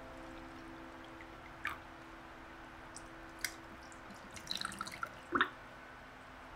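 Iced coffee poured from a glass server over ice cubes in a glass, with scattered sharp clinks of ice and glass. The loudest clink comes a little after five seconds.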